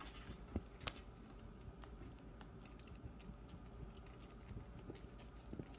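Quiet room with a low hum and faint, scattered small clicks and taps, the sharpest two about half a second and a second in.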